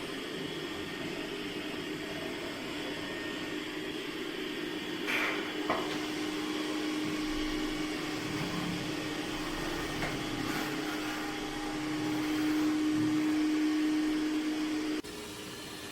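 Robot vacuum cleaner running with a steady hum, with a couple of short clicks about five seconds in. It grows a little louder toward the end, then drops abruptly to a quieter hum.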